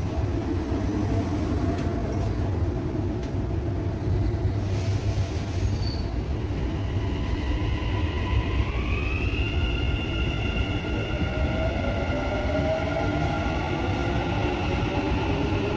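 Dubai Metro carriage running, heard from inside: a steady low rumble, with a high whine that rises in pitch about halfway through and then holds.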